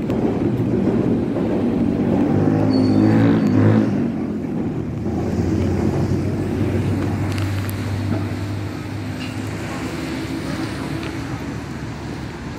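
Street traffic: a vehicle engine's steady low hum starts about two seconds in, is loudest soon after, and fades after about nine seconds, over a constant low rumble.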